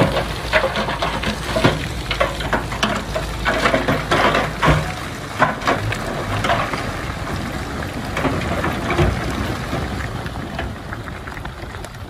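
Small Komatsu D20A bulldozer at work: its diesel engine drones low under a dense crackle and clatter of steel tracks and pushed soil and stones. The engine's drone drops away about five seconds in, leaving the crackling.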